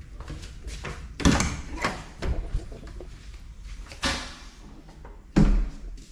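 A few separate knocks and thumps at uneven intervals, the loudest about a second in and again near the end, over a low rumble.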